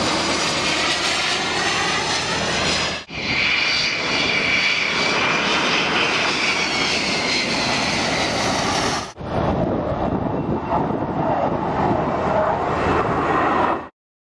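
Aircraft engine noise: a loud, steady roar with a high whine that slowly drifts in pitch, cut off sharply twice, about 3 and 9 seconds in, and stopping abruptly just before the end.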